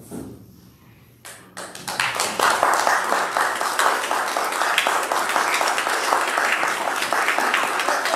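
Congregation applauding, the clapping starting about two seconds in and then going on steadily.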